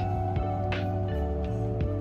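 Soft ambient background music: held, sustained chords over a low bass, with gentle new notes entering every half second or so.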